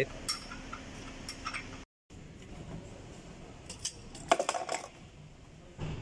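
Light clinks and knocks of metal tools and parts being handled, with a quick cluster of clicks about four and a half seconds in.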